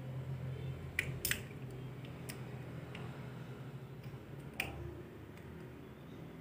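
Small sharp clicks and handling noises of a metal spring clip being worked onto the plastic housing of a Panasonic wall switch, a few separate clicks with two close together about a second in and another past the middle.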